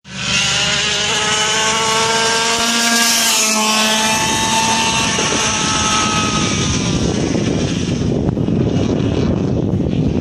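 Yamaha KT100 two-stroke kart engine running at high revs, its pitch climbing, dipping about three seconds in as the kart slows, then climbing again as it accelerates away. After about six seconds the engine's note fades into a rougher low rumble.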